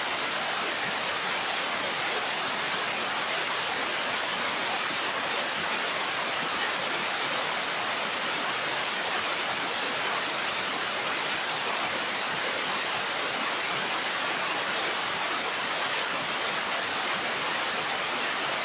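Willow River waterfall in snowmelt flood, heard close to the raging current: a steady, unbroken rush of white water.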